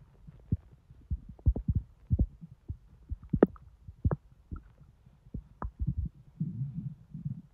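Bowel sounds heard close against a bloated belly: irregular short low pops and gurgles, with a longer low rumble near the end. The intestines are digesting a large junk-food meal and are distended with gas.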